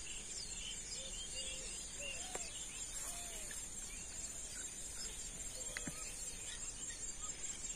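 Steady high-pitched insect chorus, with many short chirping calls scattered through it.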